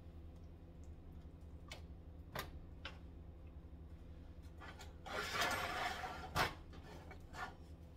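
A spatula scraping and tapping in a nonstick skillet as a block of cream cheese is pushed into a sauce. A few light clicks come first, then about a second of scraping about five seconds in, ending in a sharp knock, all over a steady low hum.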